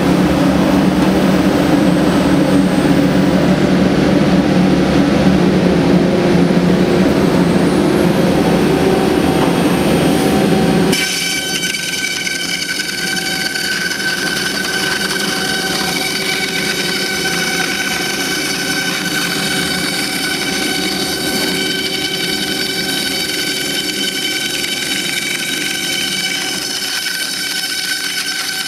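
Thermwood Model 45 three-axis CNC router running while routing corrugated fiberboard. A heavy, lower machine hum for about the first eleven seconds changes abruptly to a quieter, high-pitched whine of several steady tones.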